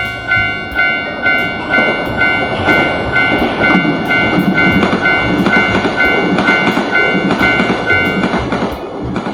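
Japanese railroad crossing warning bell ringing about twice a second while a shinkansen bullet train rushes past. The rush swells and then fades, and the bell stops near the end.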